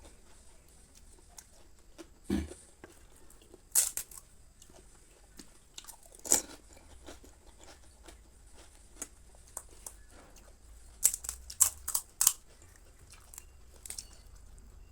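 Pani puri being eaten: the crisp hollow puri shells crunch as they are bitten, with wet chewing. There are single crunches a few seconds apart, then a quick run of four near the end.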